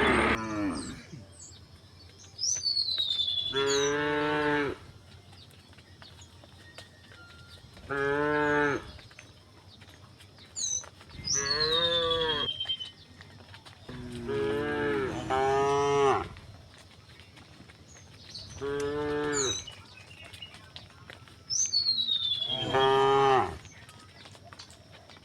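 Cows mooing over and over: about seven long, pitched moos, each one to two seconds long, with short pauses between them.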